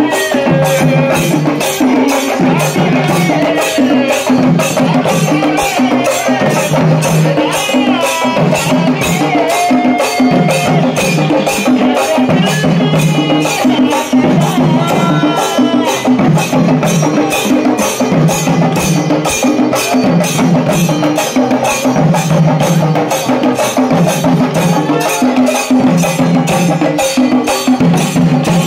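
Kerala-style chenda drum ensemble: many cylindrical drums beaten with sticks in a fast, continuous rhythm, with a strong beat repeating about once a second. A wavering, gliding melody runs over the drumming.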